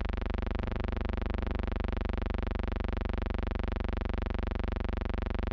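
Steady electrical buzz with many evenly spaced overtones and a fast, even pulsing, unchanging throughout.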